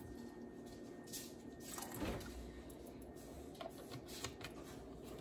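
Faint soft squishing and dripping of liquid flavouring, vanilla extract among it, poured from a bottle into a stand mixer's bowl of batter.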